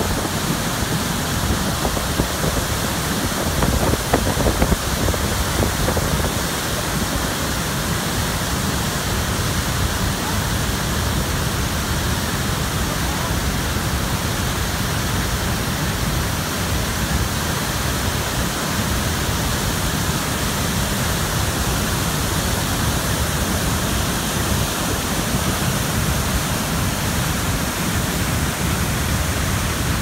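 Steady rushing of Athabasca Falls, a large volume of river water pouring over rock and crashing into the canyon below. A few short louder knocks come about four seconds in.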